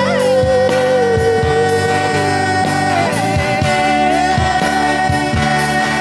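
A woman singing with a live rock band, holding long notes over acoustic and electric guitars, bass and a steady drum beat.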